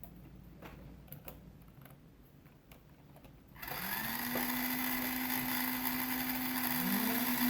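Small DC gear motors driving the robot's wheels: after a few quiet seconds with faint clicks, a motor spins up with a rising whine and runs steadily, and a second one rises to the same pitch near the end.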